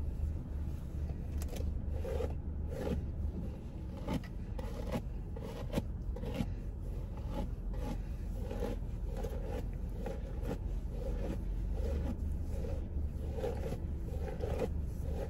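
A hairbrush dragged again and again through thick, dry natural hair, a scratchy rasp with each stroke, about every half second.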